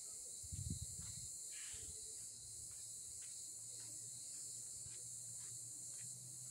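Cicadas singing in a steady, continuous high-pitched drone, with a few faint ticks scattered through it.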